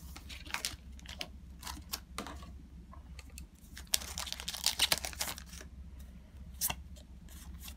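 A Digimon card booster pack's shiny wrapper being torn open, with a dense burst of crinkling and tearing about four seconds in. Light clicks and rustles of the wrapper and cards being handled come before it, and there is one sharp click near the end.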